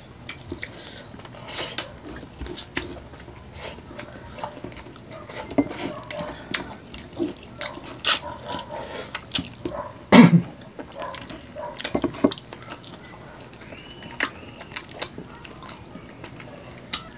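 Two people eating adobo-braised chicken feet by hand: many short mouth clicks and smacks as they chew, suck and pull the skin off the bones. One louder bite or smack comes about ten seconds in.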